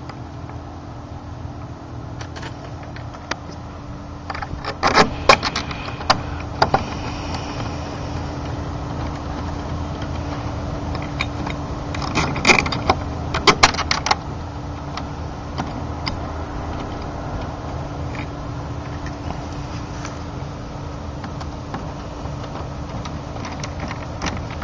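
Two short bursts of metallic clicking and rattling from a deadbolt lock being handled, a key pushed into the lock cylinder and worked. One burst comes about five seconds in and the other about twelve to fourteen seconds in, over a steady low hum.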